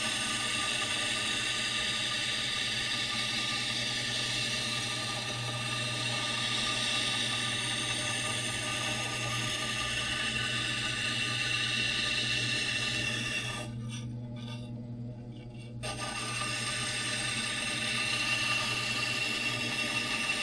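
A scraper blade being ground on a running 600-grit diamond wheel, giving a steady high grinding hiss over the grinder motor's low hum. About 14 seconds in, the grinding hiss stops for about two seconds, leaving only the motor hum, then it resumes.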